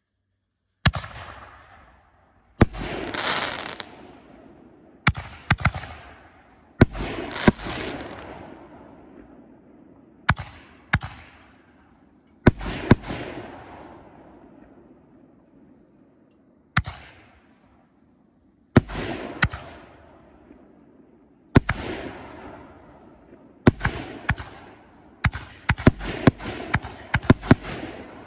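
A string of 5-inch Valhalla canister aerial shells launching and bursting: sharp bangs, many trailing off over a second or two. They are spaced several seconds apart at first and come in a quick run over the last few seconds.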